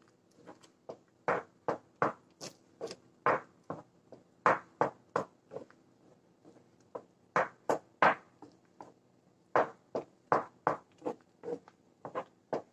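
Utensil stirring and scraping through thick semolina kesari in a nonstick frying pan: a run of short, separate strokes, about one or two a second.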